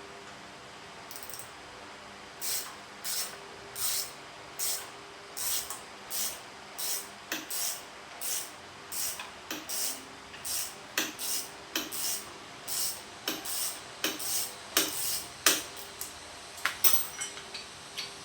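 A ratchet wrench being worked back and forth on an engine mounting bolt's nut: about twenty quick strokes, one roughly every 0.7 s, each a short run of clicks, undoing the front engine bolt.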